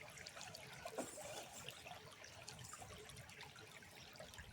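Faint trickle of running water, with scattered small ticks and clicks.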